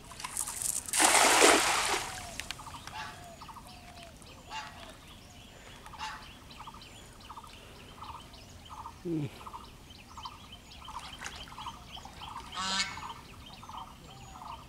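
A cast net landing on pond water with a splash about a second in, the loudest sound. After it, domestic fowl call over and over in an even series, a few calls a second.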